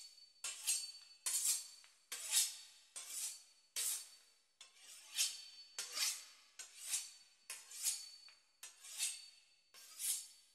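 A knife sawing back and forth through the crisp pastry crust of a beef Wellington, a steady run of short scraping strokes close to two a second.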